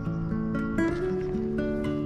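Background music led by acoustic guitar, with plucked notes changing every fraction of a second.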